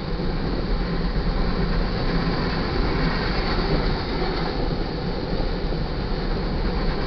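Ore train's freight cars rolling past at close range: a steady rumble and rattle of steel wheels on the rails.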